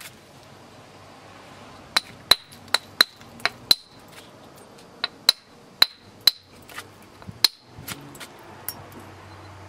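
Buffalo River chert slab struck along its edge with a knapping percussion tool to drive off flakes: about a dozen sharp clicking strikes, two or three a second, from about two seconds in, each with a short glassy ring. A few lighter taps follow near the end.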